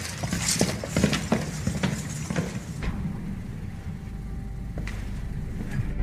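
Footsteps and scuffling with clinks and knocks from an armoured guard's gear, busy for the first three seconds and thinning out after. A low steady hum comes in about four seconds in.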